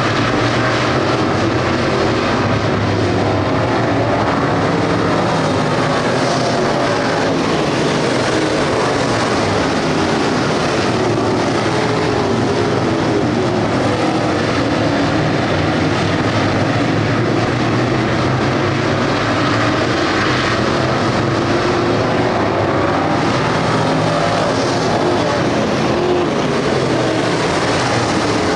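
A field of street stock race cars running flat out around a dirt oval, many engines sounding together loud and steady, their pitch rising and falling as the cars pass and lift for the turns.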